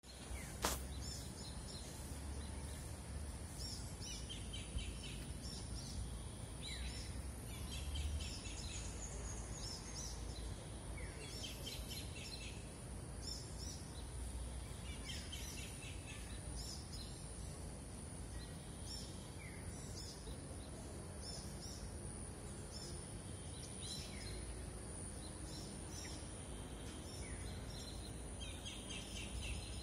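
Small birds calling outdoors, short chirping phrases with quick downward notes repeating every couple of seconds, over a steady high thin whine and a low background rumble. A single sharp click about a second in.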